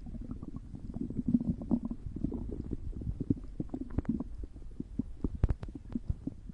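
Human stomach growling: a continuous run of low gurgles and short pops, with a few sharper pops about five seconds in.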